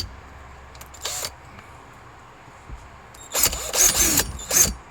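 Handheld power drill running in short bursts as it bores a small pilot hole in the soft plastic of a Jeep's centre console: a brief burst about a second in, then a longer run near the end.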